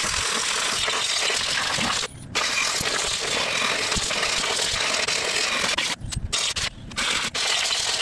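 Compressed-air blow gun hissing in long blasts into a Kawasaki FC420V engine's cooling shroud, blowing out a mouse nest of hay. The air stops briefly about two seconds in and a few times around six to seven seconds.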